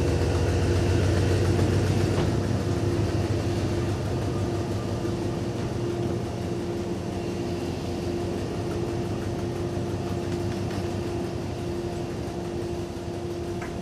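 Truck engine running steadily at low speed, a low hum with a steady higher tone over it that fades slowly as the bucket truck pulls up.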